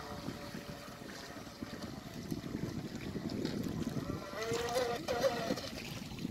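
Stealthwake 23 RC boat's electric motor whining across the water, wavering in pitch and louder from about four seconds in, over wind rumble on the microphone.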